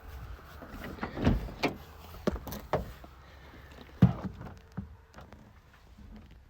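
A string of short knocks and clunks from working on a car's body. A cluster comes in the first three seconds, then one sharp knock at about four seconds, then smaller ticks.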